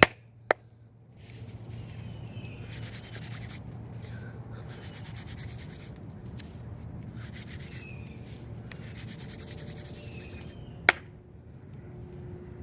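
Hands rubbing and squishing wet baking soda paste, in several stretches of rubbing a second or two long. Two sharp clicks stand out, one about half a second in and one near the end.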